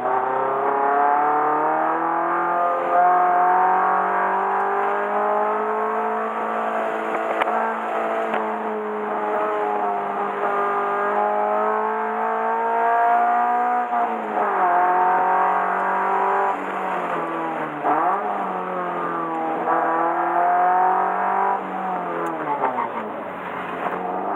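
Subaru BRZ's 2.0-litre flat-four engine pulling hard around a circuit: the revs climb slowly and hold high for the first half, then drop sharply a little past halfway, dip and pick up again, and fall once more near the end as it comes off the throttle for corners.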